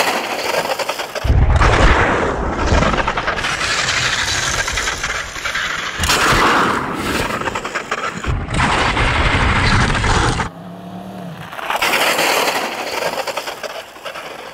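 Yamaha MT-10 motorcycle sliding on its side across tarmac after a deliberate rear-brake lay-down, its crash protectors and bodywork scraping along the ground while the engine is still running. The harsh scraping comes in several takes that start and stop abruptly as the crash is replayed from different angles.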